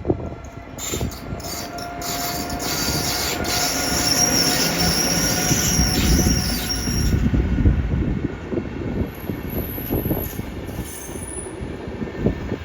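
A train running past on the rails, its rumble building and then easing off. Its wheels squeal high and steadily from about a second in until about seven seconds, then give a few shorter, higher squeals near the end.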